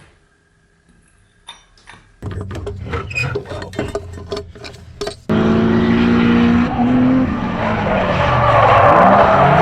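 A car engine, quiet at first with a few clicks, then running roughly from about two seconds in, before jumping to loud hard revving about five seconds in. The revs rise and fall while tyre squeal builds: a car drifting.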